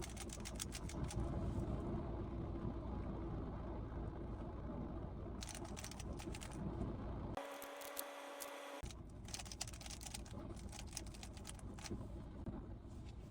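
A 3x3 Rubik's cube being turned quickly in runs: rapid plastic clicking of the layers, over a steady low background rumble.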